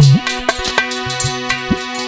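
Instrumental music: drum strokes and low, pitch-bending drum thuds over sustained keyboard notes, with no singing.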